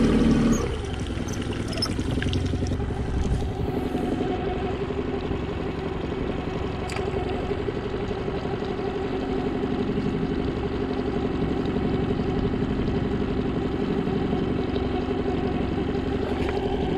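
Mercury outboard motor idling with a steady hum.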